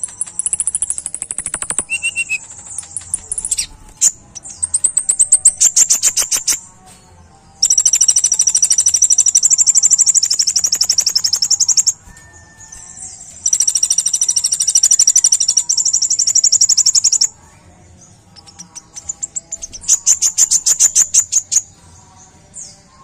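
Kolibri ninja sunbird singing loudly in a fast, high-pitched run of rapid repeated notes and trills. Two long unbroken trills of several seconds each fill the middle, with shorter bursts before and after.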